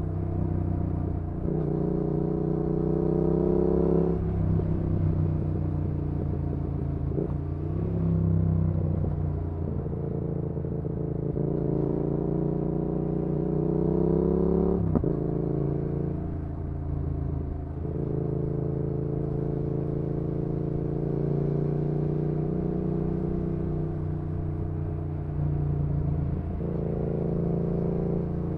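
2019 Yamaha XSR700's parallel-twin engine through an aftermarket IXRACE MKII exhaust, pulling up through the gears. The pitch climbs and drops sharply at each shift in the first half, then holds fairly steady while cruising, rising again near the end.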